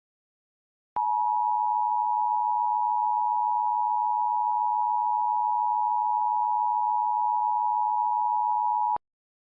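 A steady electronic tone, pitched just under 1 kHz, starts about a second in and cuts off abruptly about eight seconds later.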